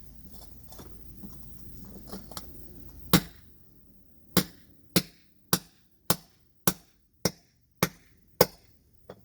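Hammer blows on metal, driving wheel studs on a car's rear wheel hub: one sharp strike about three seconds in, then eight evenly spaced strikes a little faster than one a second, each ringing briefly.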